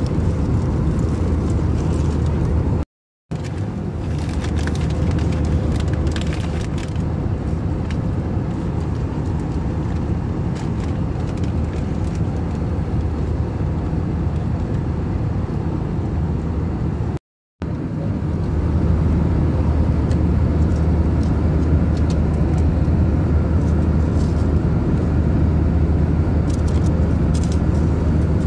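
Steady, even roar of a jet airliner's cabin in flight, engine and air noise sitting low, with a few faint clicks over it. The sound cuts out completely for a moment twice, about three seconds in and again a little past halfway.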